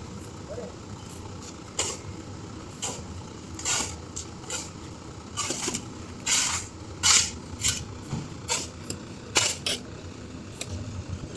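Sweet sand being shovelled and spread: a dozen or so short, irregular scraping hisses over a steady low engine hum.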